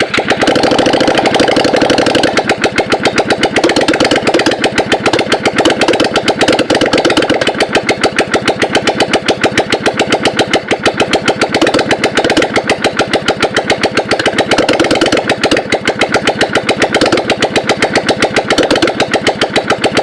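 Yamaha XV 500 V-twin motorcycle engine running loud at a steady idle with no exhaust pipes fitted, an even, rapid beat of open exhaust pulses.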